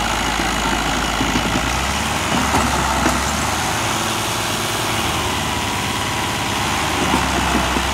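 Farm tractor's diesel engine running steadily, with small shifts in its low note as it works.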